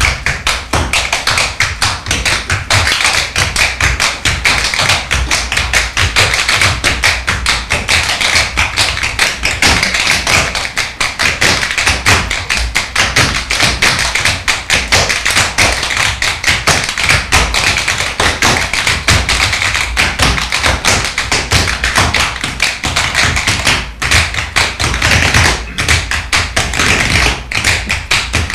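Tap dancers' shoes striking a stage floor in dense, fast, continuous footwork from several dancers at once.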